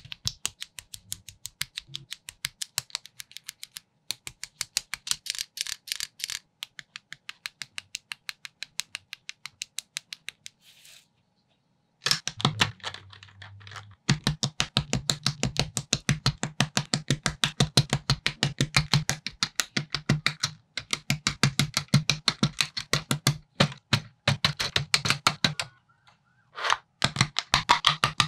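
Plastic building bricks clicking and snapping together in a fast, even run of about five clicks a second, as in sped-up building footage. The clicking breaks off briefly twice. From about halfway, a low thump sounds under each click.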